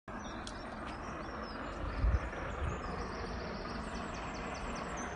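Steady outdoor rumble beside a railway line, with wind buffeting the phone's microphone about two seconds in and faint high chirps above it.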